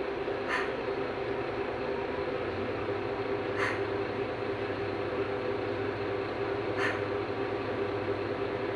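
Mercedes-Benz Citaro city bus idling at a standstill, heard from inside the cabin: a steady engine hum that deepens about two and a half seconds in, with a short hiss about every three seconds.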